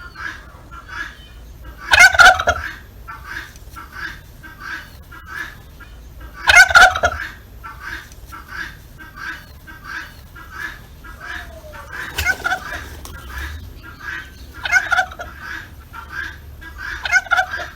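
Turkeys gobbling: five loud rattling gobbles, with short calls repeating about twice a second in between.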